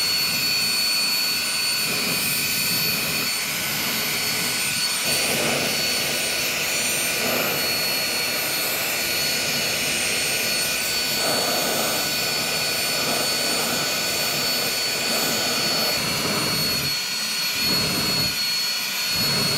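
A small electric air pump blows a steady stream of air at the lit burner of a Campingmoon XD-2F canister gas stove, its running mixed with the rush of the gas flame, with a thin high whine on top. This is a wind-resistance check on the burner.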